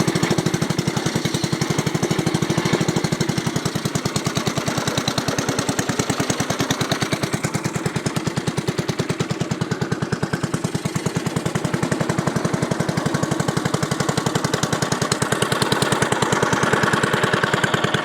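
Small boat engine running steadily with a rapid, even pulse.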